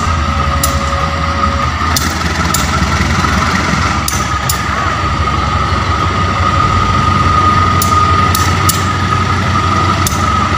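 Diesel-electric locomotive pulling a passenger train away from a standstill: a steady low engine rumble that grows slightly louder, with a steady high whine over it and a few scattered sharp clicks.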